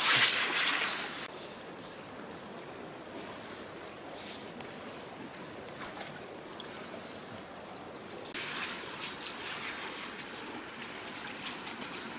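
Hands scraping and scooping wet river gravel in shallow water, loud in the first second and again over the last four seconds, with stream water trickling in between.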